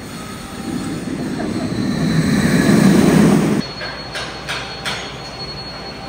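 Mandrill Mayhem roller coaster train running along its track on an empty test cycle, its rumble and wheel noise building over about three seconds and then cutting off suddenly, followed by a few sharp clunks.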